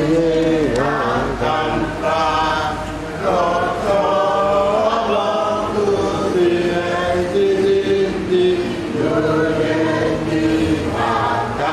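A group of voices singing a slow, chant-like hymn together, on long held notes that step from pitch to pitch in phrases of a few seconds.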